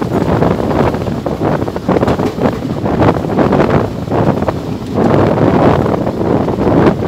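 Wind buffeting the microphone of a phone held out of a moving passenger train, over the train's running noise; the level swells and dips unevenly with the gusts.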